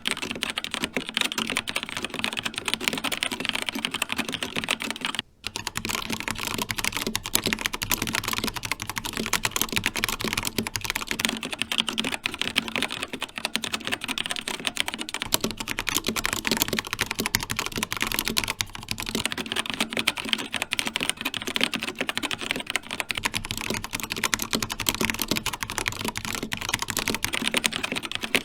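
Fast, continuous typing on an Xtrfy K4 TKL mechanical keyboard with linear red switches: a dense stream of key clacks, with one brief pause about five seconds in.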